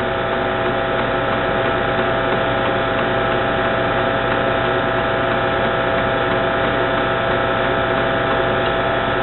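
Steady electrical hum with several steady tones from the IMSAI 8080 computer and its Shugart SA800-series 8-inch floppy drive running while the drive formats a disk track by track.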